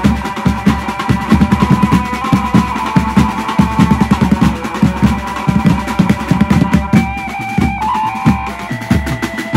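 A Maharashtrian banjo party band playing at full tilt: fast, dense drumming with tasha among the drums, under a held, amplified melody line that shifts pitch about seven seconds in.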